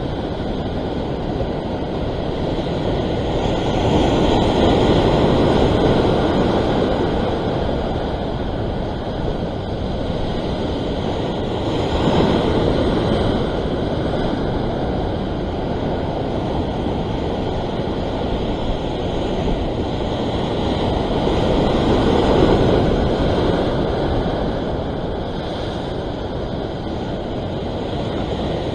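Ocean surf washing against a rock ledge, with wind buffeting the microphone. The wash swells louder three times, about four, twelve and twenty-two seconds in.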